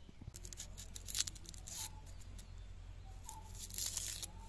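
Knife blade scraping and slicing the papery skin off a small red onion: a few crisp rasps, loudest about a second in and again near the end.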